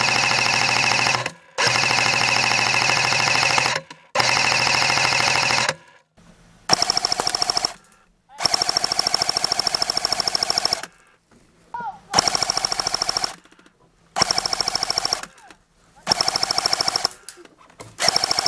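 Airsoft gun firing on full auto in about nine long bursts of rapid, even clicks, each lasting one to two seconds with short pauses between, as suppressing fire.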